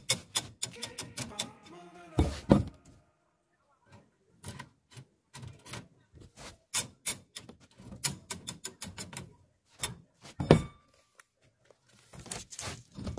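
Irregular metallic clicks and clinks of steel rebar and tie wire being handled and twisted with pliers, while stirrups are tied onto a reinforcing cage. A louder knock comes about two and a half seconds in, and another about ten and a half seconds in.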